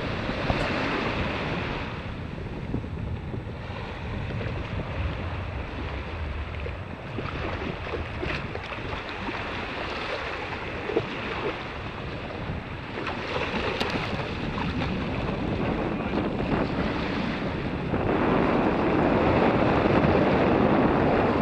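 Small waves washing over a sandy beach, with wind buffeting the microphone and a few short sharp ticks. The wash grows louder near the end.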